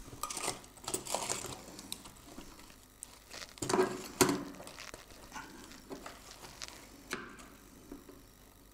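Scattered rustles and light clicks of wire and small parts being handled on a workbench, loudest a little before halfway through.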